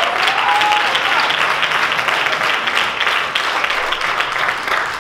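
Congregation applauding, a dense patter of many hands clapping that thins a little near the end.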